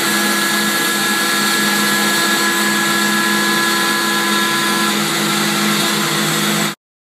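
CNC router running a cutting job, its spindle giving a steady whine over a low motor hum. It cuts off abruptly near the end.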